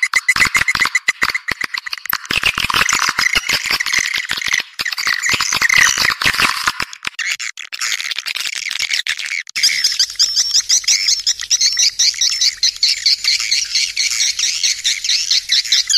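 Swiftlet calling sound of the kind used to lure swiftlets: dense, rapid twittering chirps with a fast clicking texture in the first half. About halfway through it switches to higher, quicker twitters.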